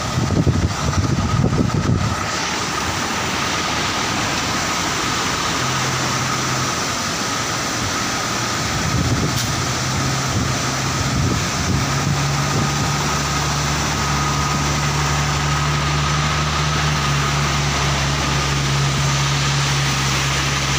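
Hino cargo truck's diesel engine running at a low, steady idle-like hum, over the constant rush of a waterfall. The engine hum becomes clear and steady in the second half.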